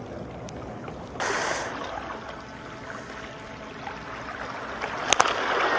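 Small waves washing against a rocky seawall, a steady rush of water. There is a brief louder rush about a second in and two sharp clicks near the end.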